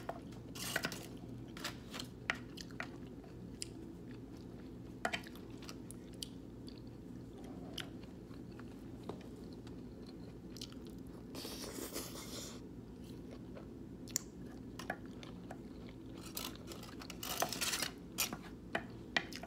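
A person chewing and biting a vegan deli-slice sandwich close to the microphone, with scattered short crunches and mouth clicks and a longer crunching noise about twelve seconds in. A steady low hum runs beneath.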